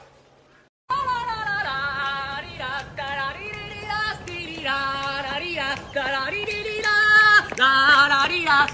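A woman singing, starting about a second in, holding notes and sliding and jumping between them.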